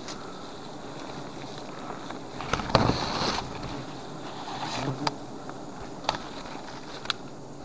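Wild honey bees buzzing steadily around an exposed comb, with palm fronds rustling loudly about three seconds in and again near five seconds, and a few sharp clicks as the fronds are handled.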